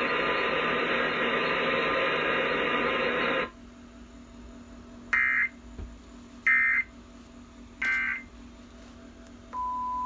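Emergency Alert System test audio playing from a television speaker. The loud alert audio cuts off sharply about three and a half seconds in. Three short digital data bursts follow, about a second and a half apart, marking the end of the message, and a steady single tone begins near the end.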